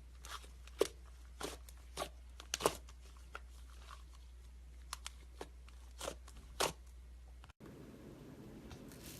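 Slime being squeezed and handled, giving irregular sharp crackles and pops. About seven and a half seconds in, the low background hum cuts out and a different background takes its place.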